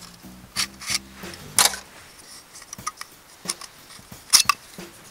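Titanium alcohol stove and stand parts being handled and fitted together: several sharp metallic clinks and scrapes, the loudest near the end. Background music plays under the first two seconds, then stops.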